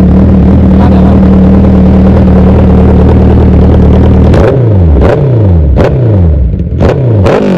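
Suzuki Hayabusa's inline-four engine through an Austin Racing aftermarket exhaust, quite loud, held steady at high revs, then blipped several times from about four and a half seconds in, the revs falling away after each blip with a sharp crack from the exhaust.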